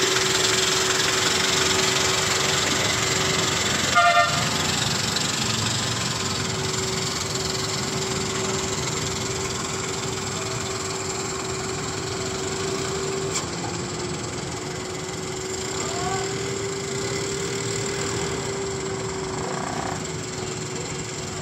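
Hyundai Shehzore pickup truck's engine running as the truck pulls away and drives across the yard, with a short horn toot about four seconds in.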